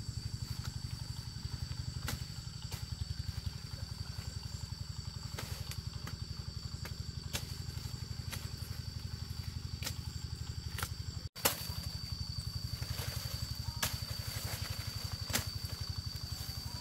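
A small engine running steadily, its rapid even firing pulses continuing with a constant high whine, and a few sharp clicks and knocks over it. The sound cuts out for an instant about two-thirds of the way through, then carries on as before.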